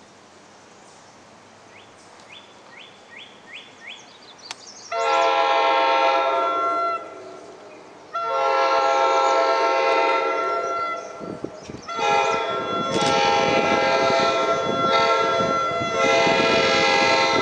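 An NJ Transit train's multi-chime horn sounding as it approaches: two long blasts, a short one, then a long one, the standard grade-crossing signal. The low rumble of the oncoming train builds under the last blasts.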